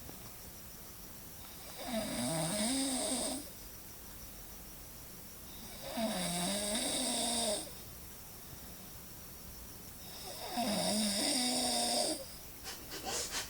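A man snoring: three long snores, each about a second and a half, with a pitch that wavers up and down and quiet gaps between them.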